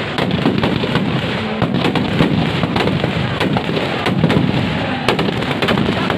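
Firecrackers packed inside a burning Ravana effigy going off: a dense, irregular string of sharp bangs and crackles over a continuous rumble.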